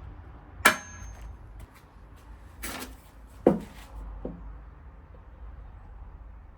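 A few separate knocks and clatters of objects being handled and set down. The loudest comes about half a second in and carries a brief metallic ring, followed by two more a few seconds later and a lighter one after them.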